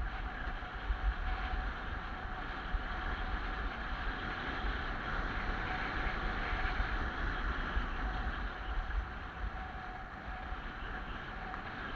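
Skis running and scraping over hard-packed groomed snow in a steady hiss, with wind buffeting the microphone as a gusty low rumble.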